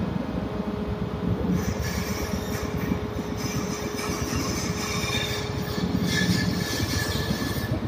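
Ship's hydraulic steering gear running in the steering gear room: a steady, loud mechanical rumble with a thin steady hum that fades out about two-thirds of the way through.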